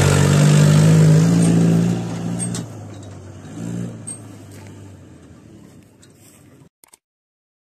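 Pickup truck driving past close by and pulling away down a dirt track, its engine loud at first and fading as it goes into the distance. The sound cuts off suddenly near the end.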